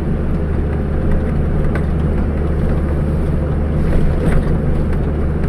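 Steady low drone of a truck's engine and tyres at cruising speed, heard from inside the cab.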